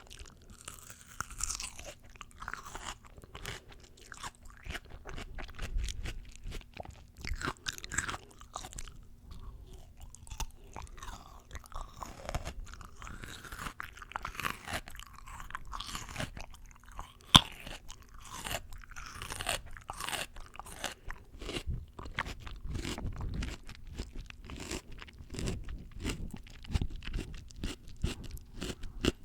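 Close-miked crunching and chewing of fresh raw fruit, with irregular crisp, juicy crackles from bite to bite. One sharp crack, the loudest sound, comes about two-thirds of the way through.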